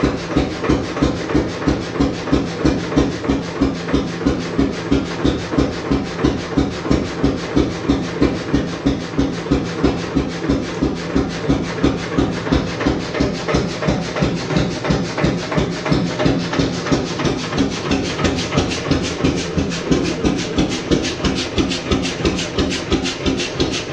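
1928 Beijer 13 hp single-cylinder hot-bulb oil engine running at a slow, even beat after its start, each firing a separate pulse.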